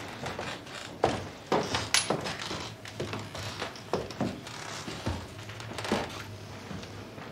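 Footsteps on a wooden parquet floor, a woman's heeled shoes among them: a run of sharp, uneven knocks at about two a second.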